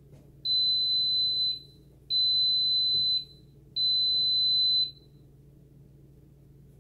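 Cosori electric pressure cooker beeping three times, each a long steady high-pitched beep of about a second, as its display counts down to 000: the signal that the set cooking program is starting.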